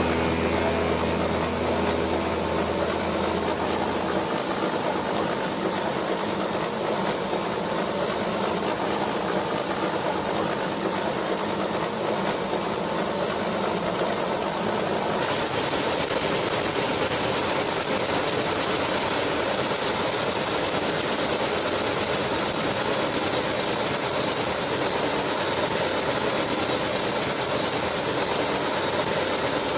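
Steady, even rushing noise with no clear pitch, its tone shifting slightly about halfway through. A low hum underneath stops about four seconds in.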